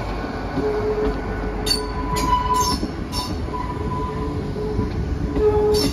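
Great Western Railway train moving slowly along the platform: a steady low rumble with a constant hum, and a few brief high-pitched wheel squeals about two to three seconds in and again near the end.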